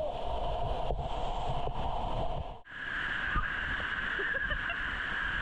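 Waterfall, a steady rush of falling water. The sound cuts off abruptly about two and a half seconds in and resumes as a similar steady rush with a different tone.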